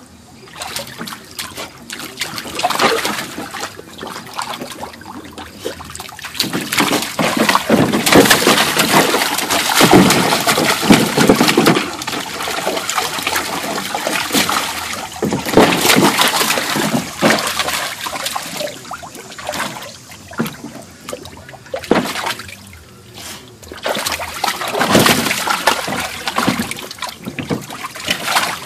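Shallow water splashing and sloshing in a plastic kiddie pool as a puppy paws and digs at a bocce ball on the bottom, in irregular bouts that swell and fade.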